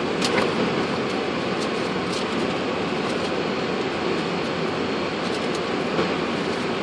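Steady rushing noise on the flight deck of a Boeing 747-400, with a few faint clicks.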